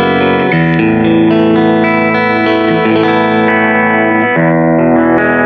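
Aiersi TL-12 electric guitar playing a melodic line of sustained notes with a distorted, effects-laden tone.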